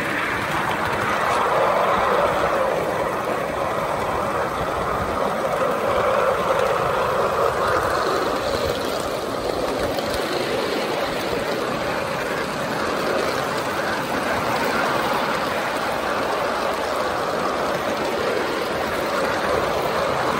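Ride-on miniature steeple-cab locomotive running steadily along the track, heard from on board: a continuous rolling rumble of wheels on rail with drive noise.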